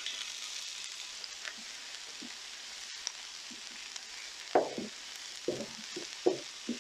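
Onions frying in hot oil in a large paella pan, a steady sizzle with spattering. In the second half come a few short knocks and scrapes of stirring in the pan.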